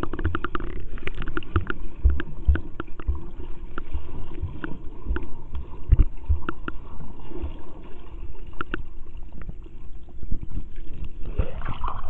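Pool water heard underwater through a waterproof camera's muffled microphone: a gurgling wash with many small clicks and pops from bubbles and low thumps of water movement against the camera.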